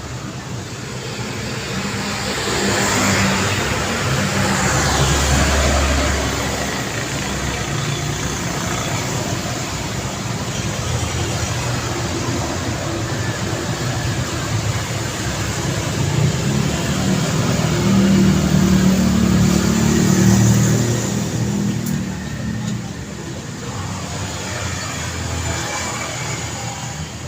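Street traffic: motor vehicles passing on a road with steady engine and tyre noise. Two louder vehicles go by, the first a few seconds in and the second about two-thirds of the way through.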